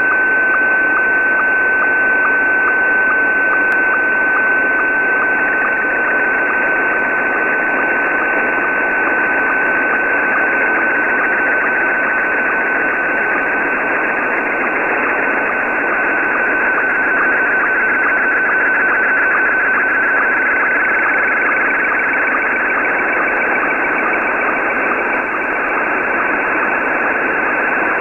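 Slow-scan television (SSTV) picture signal in Scottie 1 mode, received weak and noisy on shortwave single sideband: a steady whistle with a short blip about twice a second, one blip per picture line, under heavy static hiss. From about ten seconds in the whistle begins to warble over a wider range of pitch as brighter parts of the image come through.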